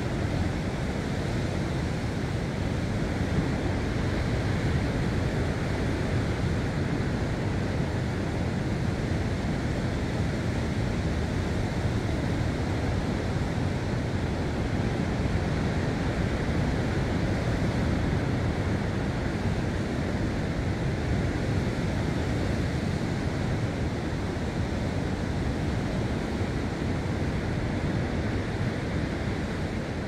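Sea surf washing steadily on a rocky coast, mixed with wind.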